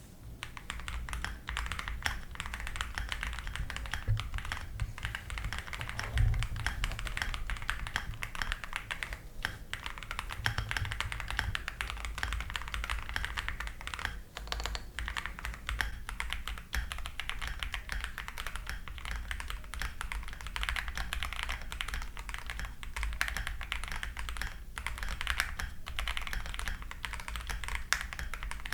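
Steady fast typing on a gasket-mounted Sisyphus65 keyboard (aluminium case, FR4 plate, foam-filled) with pre-lubed Diamond Avalon linear switches and MW keycaps: a dense run of quick keystroke clicks, broken by a few brief pauses.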